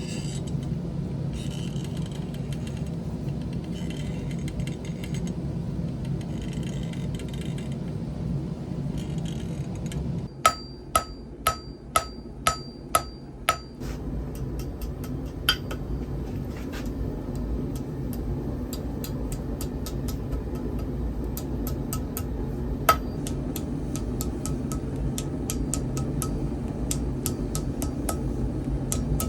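Blacksmith's hammer striking hot steel on an anvil: six loud ringing blows about half a second apart, about ten seconds in, then lighter, scattered taps. A steady roar runs underneath.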